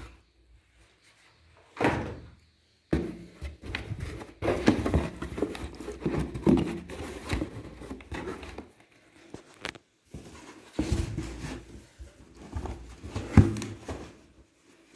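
Cardboard box and packaging being handled as a network storage unit is lifted out: irregular rustling and scraping with several dull knocks, the sharpest about thirteen seconds in.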